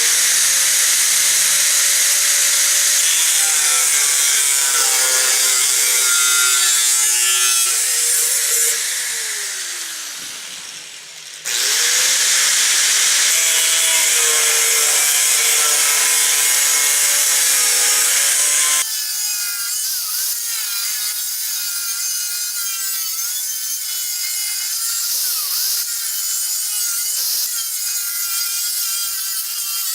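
Power tool cutting through rusted sheet steel of a VW Type 181 floor tunnel. It starts at once, winds down with a falling pitch about nine seconds in, starts again a couple of seconds later, and runs quieter from about two-thirds of the way through.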